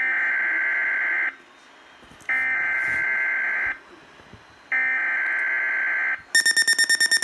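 Three bursts of the SAME digital alert header from a Weatheradio Canada broadcast, a harsh data tone of about 1.4 s each with short gaps between them. Near the end a rapidly pulsing alert tone starts, marking an alert about to be read.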